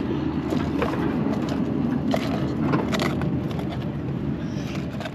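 Steady rumble of passing road traffic, easing off near the end, with a few light clicks and taps over it.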